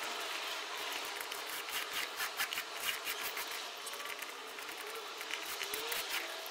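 Small foam roller rolled along epoxy-wet fiberglass tape in a plywood hull corner, a soft sticky rubbing. Scattered small clicks come thickest about two to three seconds in.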